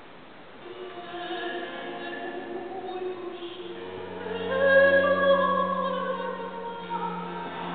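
A small chamber ensemble begins about a second in, holding sustained notes in several parts at once. A low bass note enters about halfway through, and the music swells to its loudest just after.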